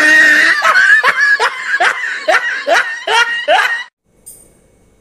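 High-pitched laughter: a rapid run of short giggles, each falling in pitch, about two a second. It cuts off sharply about four seconds in.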